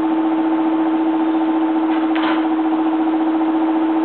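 Steady machine hum at one constant, unchanging pitch, with a faint brief scrape about two seconds in.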